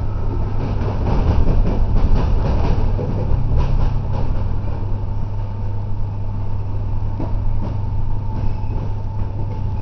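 Interior of a moving electric suburban train: a steady rumble of wheels on rail with a low hum, and a run of clicks from the wheels over the track in the first few seconds.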